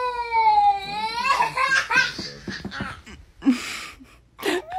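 A toddler crying in a long, high-pitched wail, a put-on cry, broken in the middle by laughter, then wailing again near the end.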